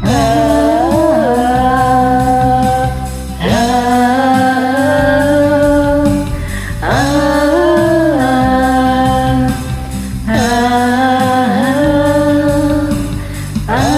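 Music: a karaoke backing track carrying a melody of long held notes, a new note about every three and a half seconds, each sliding up into pitch as it starts.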